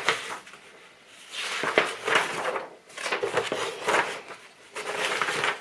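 Paper instruction booklet being handled and leafed through, rustling in about three stretches with a few sharp ticks.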